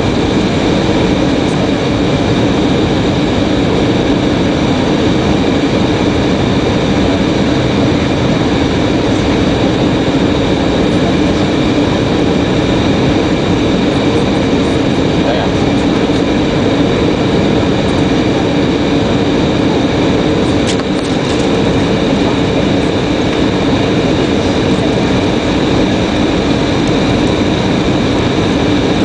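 Steady turbofan engine and airflow noise inside an airliner cabin on descent for landing, a constant loud rush with a few steady tones in it.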